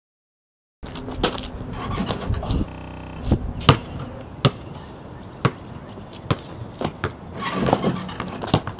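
Basketball bouncing on a concrete driveway, one sharp bounce about every second, starting about a second in after silence.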